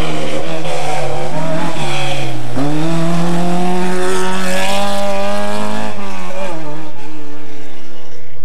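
Rally car engine revving hard through a hillclimb bend. Its pitch climbs sharply about two and a half seconds in, holds high, then drops off near the end.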